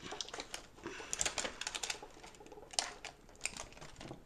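Irregular light clicks and ticks from small yo-yo parts and their packaging being handled, with a louder click near the middle.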